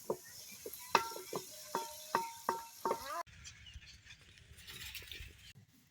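A quick series of short pitched animal calls, about a dozen in three seconds. After an abrupt cut, a stretch of low rumbling noise follows.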